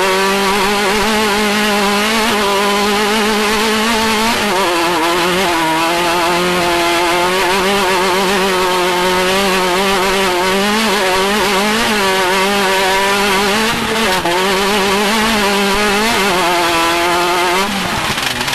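Off-road race vehicle's engine running hard at high revs, its pitch wavering up and down without a break. The revs dip briefly about four seconds in and again near the end.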